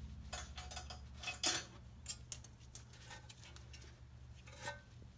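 Scattered light clicks and clinks of metal parts being handled as the front brake rotor and steering knuckle assembly is moved by hand, the loudest about a second and a half in, over a steady low hum.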